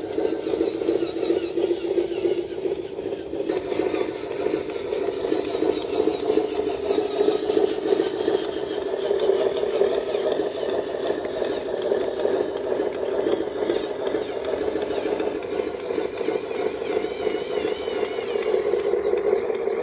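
Steady truck engine sound from a loaded radio-controlled model truck driving along, one continuous drone with a slight waver.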